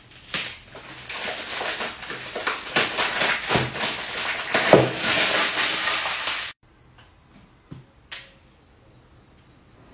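Cellophane wrap crinkling and crackling as it is torn and peeled off a perfume box, cutting off suddenly about six and a half seconds in. A couple of soft taps follow as the box is handled.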